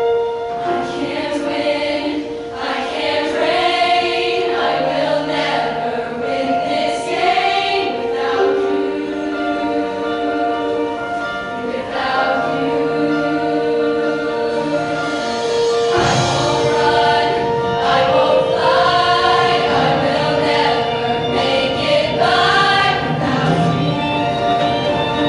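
Girls' show choir singing in harmony over instrumental accompaniment, with one note held steadily underneath; the accompaniment fills out lower down about two-thirds of the way through.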